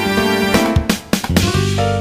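Instrumental background music with sustained notes, and a short run of sharp percussive hits about halfway through.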